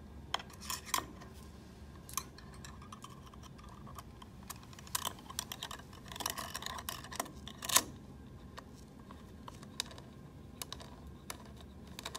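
Small metal screws and the metal print-head housing being handled as the print-engine screws are fastened down, giving scattered light clicks and taps. A sharper click comes about eight seconds in.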